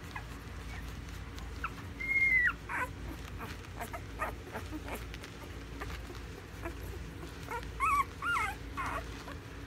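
Five-day-old pit bull puppies squeaking: one high, drawn-out squeal about two seconds in, and a quick cluster of short squeaks near the end.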